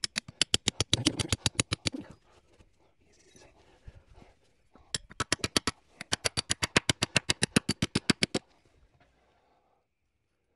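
Hammer struck quickly and evenly, about seven blows a second, in two runs: one of about two seconds at the start and a longer one of about three and a half seconds beginning about five seconds in.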